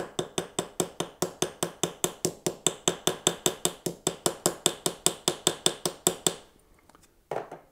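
Small round-faced hammer tapping rapidly and lightly on the end of a bronze wire rivet set through copper sheet on a bench block, about six ringing metal taps a second, spreading the wire end to form the rivet head. The tapping stops about six seconds in, followed by a single short knock near the end.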